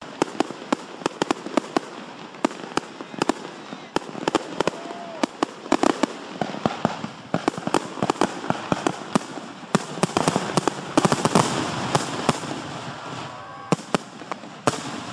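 Display fireworks firing: a fast string of sharp bangs from 2-inch cakes and aerial shells being launched and bursting, thickest and loudest a little past the middle.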